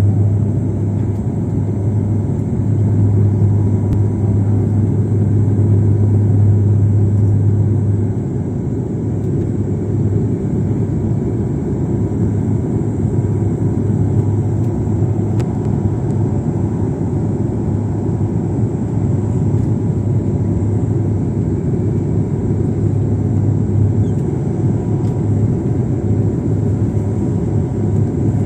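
Steady engine drone and airflow noise heard inside an airliner's cabin during the approach to landing, with a strong low hum that eases a little about eight seconds in.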